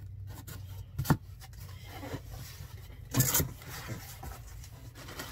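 Cardboard shipping box being opened by hand: flaps rubbing and scraping as they are pulled back, with a sharp snap about a second in and a louder scrape a little after three seconds.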